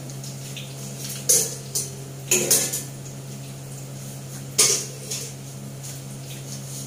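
Metal kitchen utensils, tongs and a spatula, clinking and clattering against a plate and the wok in a few sharp strikes. The loudest come a little over a second in and again about four and a half seconds in, over a steady low hum.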